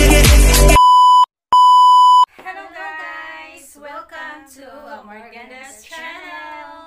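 Intro music cutting off, then two loud, steady, high-pitched beeps of an edited-in bleep tone, the second a little longer, followed by women's voices singing together.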